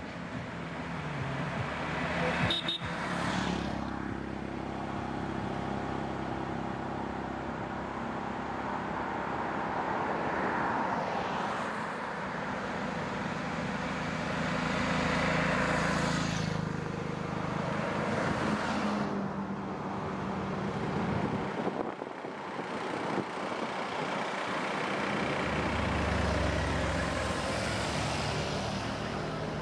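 Road traffic going by: three-wheeler auto-rickshaws and a lorry pass one after another, their engine sound rising and falling as each goes by. There is a single sharp knock about two and a half seconds in.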